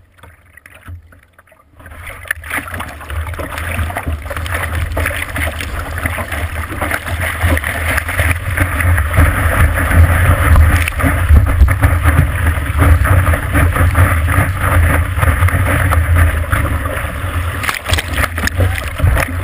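Rushing, splashing water of a breaking wave pouring over a surfboard-mounted GoPro, with a heavy low rumble. It starts about two seconds in after a quiet start and stays loud.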